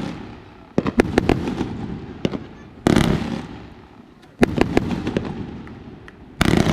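Fireworks going off in a steady string, a burst every second and a half to two seconds, each a sharp bang with a quick run of crackling pops and a rumble that dies away.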